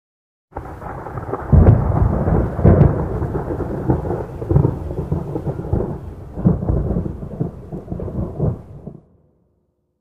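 Rolling thunder: a deep rumble that swells in several heavy peals, the strongest about a second and a half and just under three seconds in, then cuts off suddenly about nine seconds in.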